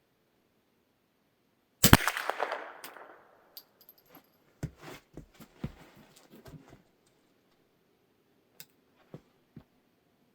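A single shot from a Kongsberg M22 rolling-block rifle firing a .22LR subsonic round, with a short echoing tail. It is followed by a run of metallic clicks and clacks as the single-shot action is worked to reload, and a few light clicks near the end.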